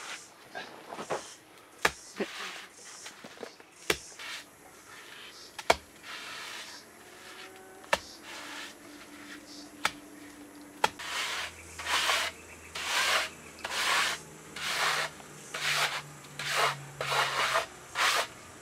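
Gloved hands rubbing and smoothing wet mud plaster over the dome of a clay oven. A few scattered sharp knocks at first, then from about halfway a steady run of rubbing strokes about one a second.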